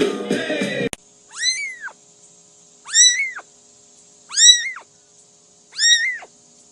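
Very young kitten meowing: four high-pitched mews, each rising then falling in pitch, about one and a half seconds apart. Music plays in the first second and cuts off abruptly.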